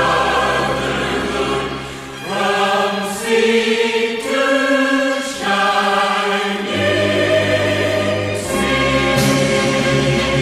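Background music: a choir singing slow, held chords that change every second or two, over a deep bass line.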